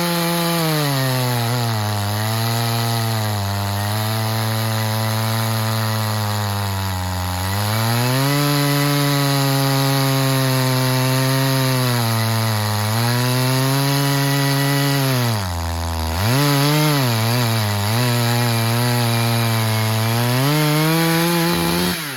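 Muffler-modded Echo CS-620P two-stroke chainsaw with a 36-inch bar and ripping chain, running at high revs on a Granberg Alaskan mill and ripping lengthwise through a butternut log. The engine pitch wavers under the load and dips and surges a few times about two-thirds of the way through. It drops away suddenly at the very end as the cut finishes and the slab comes off.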